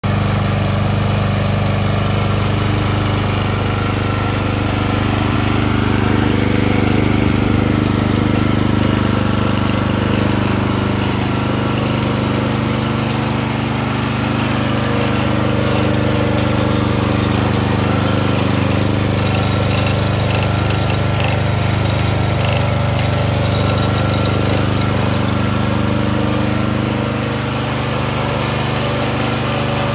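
MTD T/330 M garden tiller's small single-cylinder petrol engine running steadily, dipping slightly in level near the end.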